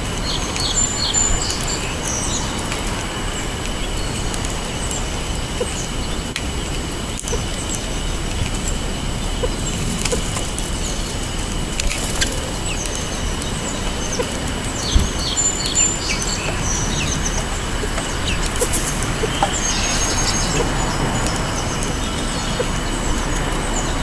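Small birds chirping in several short bursts of high notes, over a steady background hiss and a faint constant high tone.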